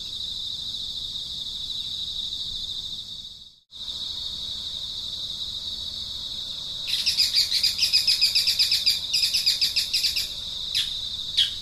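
Steady high-pitched insect trilling, which cuts out briefly about three and a half seconds in. About seven seconds in, a louder, rapid series of chirps at roughly six a second joins it for about three seconds, followed by a couple of short clicks near the end.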